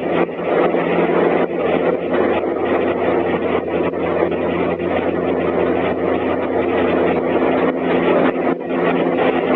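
Diesel railcar engine running with a steady, even drone and faint occasional clicks, muffled by a flip phone's microphone.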